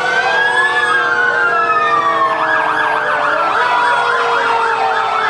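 Fire engine sirens sounding together: slow rising and falling wails overlap, and about two seconds in a fast yelp joins, going up and down about three times a second.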